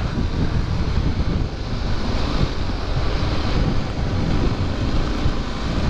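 Wind rushing steadily over a helmet-mounted microphone on a moving motorcycle, with the bike's engine and road noise underneath.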